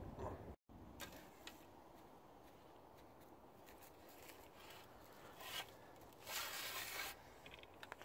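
Faint rustling and rubbing from handling the camera close to the microphone, with a louder rustle about six to seven seconds in.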